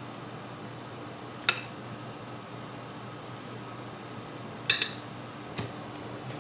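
Utensils clinking against dishes a few times: one clink about a second and a half in, a louder double clink near the end and a faint tap after it, over a steady low background hum.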